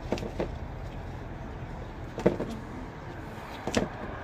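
Gloved hands working a pothos cutting and potting soil in a plastic pot: a few short knocks and clicks, the sharpest a little past halfway, over a steady low rumble.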